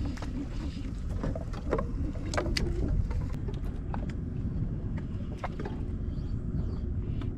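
Steady low rumble of wind and water around a fishing kayak, with scattered light clicks and taps, most of them in the first three seconds.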